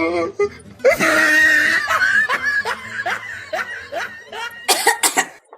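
A person laughing hard: a loud outburst about a second in, then a run of short ha-ha pulses about three a second, ending in a few sharp breathy bursts.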